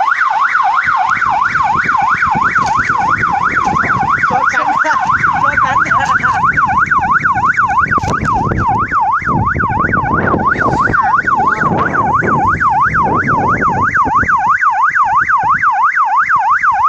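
Electronic police-style siren horn fitted to an electric bicycle, in its fast yelp mode: a loud tone sweeping quickly up and down, about three times a second.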